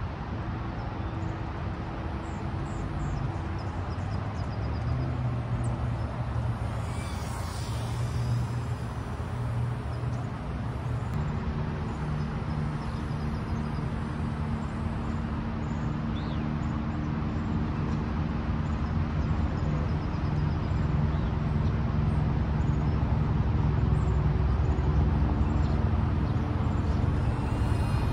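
Steady rushing and humming noise of a small FPV quadcopter in flight, its low hum shifting and strengthening about a third of the way in and the whole sound gradually getting louder.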